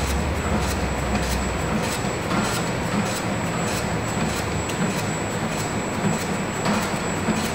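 Rusty chain-driven machine running: roller chain and threaded-rod drive going with a steady mechanical rattle and regular clicks, about three or four a second, over a thin steady high whine.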